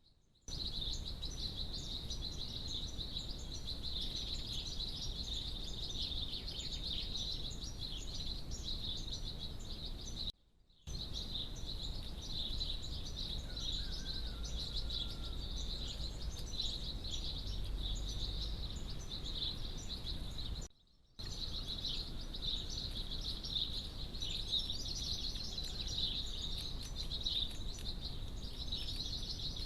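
Outdoor background of many small birds chirping continuously, a dense high-pitched chatter. The sound drops out briefly twice, about a third and two thirds of the way through.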